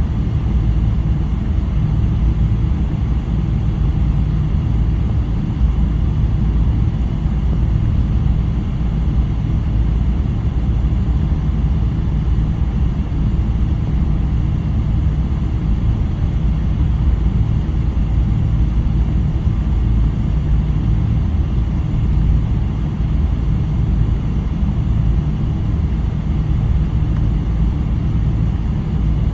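Steady low rumble in the cabin of a Boeing 777-300 with Rolls-Royce Trent 800 engines: engine and airflow noise, even and unchanging throughout.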